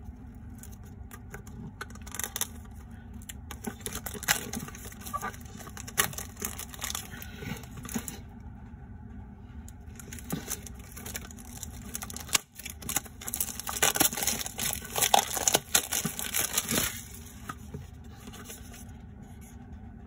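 Clear plastic shrink wrap crinkling and tearing as it is peeled off a small cardboard-and-plastic toy box, with irregular crackles and clicks of handling. The crackling is loudest a little past the middle.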